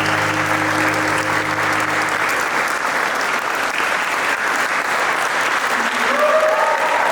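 Crowd applauding steadily, with held low music notes under it that stop about two seconds in. Music with a sliding melody comes in near the end.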